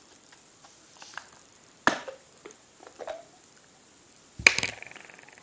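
Small hard-plastic container being handled, with several light clicks and a sharp click about two seconds in. Near the end comes the loudest sound, a sharp clack followed by a brief ringing tone that fades.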